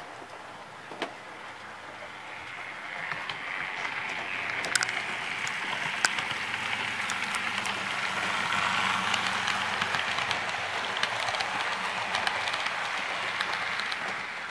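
HO-scale model Amtrak passenger train rolling past on the track, its wheels clicking over the rails. The sound swells as the train draws near, is loudest about two-thirds of the way through, and drops away at the very end.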